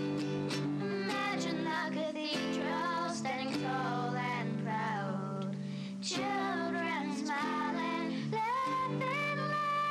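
Music: a slow song sung by a single voice over plucked acoustic guitar.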